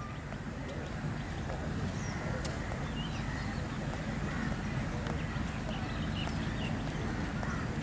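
Outdoor ambience: scattered short bird calls over a steady background noise that slowly grows a little louder.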